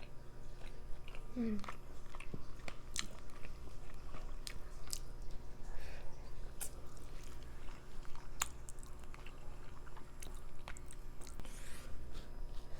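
Close-miked eating: a person chewing food, with scattered short wet clicks and smacks of the mouth.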